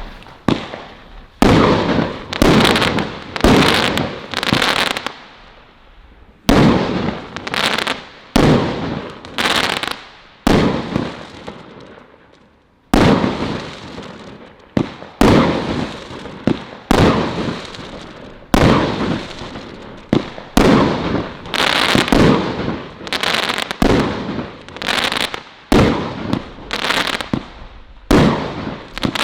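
Colour Crackles 25-shot firework cake firing in quick succession: a sharp shot about every three-quarters of a second, each trailing off into crackling. The firing lulls briefly twice, around five and eleven seconds in, then keeps going.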